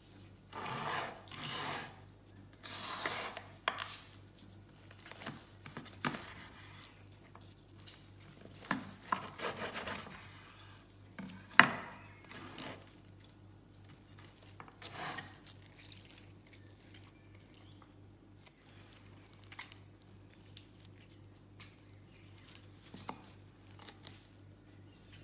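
A large knife cutting through the peppery crust of smoked beef short ribs and knocking on a wooden cutting board: a few short scraping cuts in the first few seconds and again near the middle, scattered knocks, and one sharp, loudest knock just before halfway.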